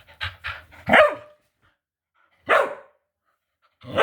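Pet dog barking indoors: a few quick short huffs, then loud single barks about a second and a half apart.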